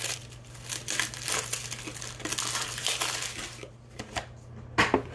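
Card packaging crinkling and rustling as baseball cards are handled, then two sharp taps near the end.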